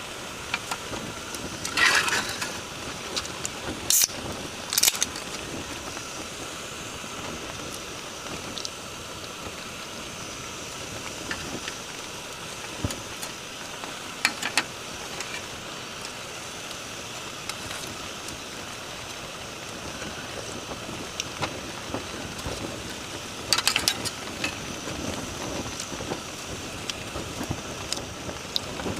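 Steady rain hiss with a few short clicks and rustles, the strongest about two seconds in and near the end.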